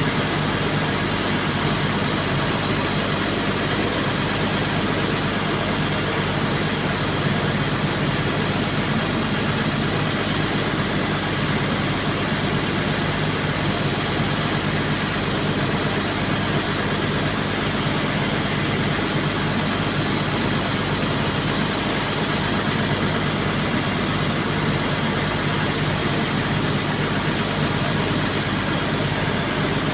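Bulldozer's diesel engine running steadily, its pitch and level unchanging.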